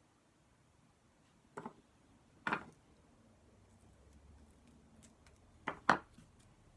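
A few light knocks and taps of things being handled and set down on a craft table, ending with two sharp knocks in quick succession near the end.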